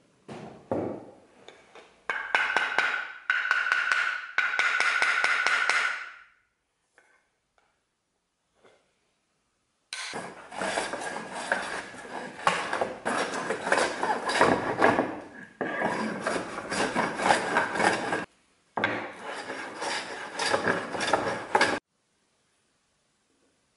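Hand plane shaving a maple tabletop: long runs of fast rasping strokes with short pauses between them. An earlier run of strokes about two seconds in carries a steady high ring.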